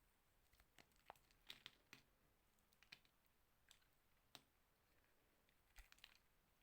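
A knife cutting slowly through a bar of soap: a scatter of faint, short crunches and clicks at irregular intervals, with a small cluster near the end.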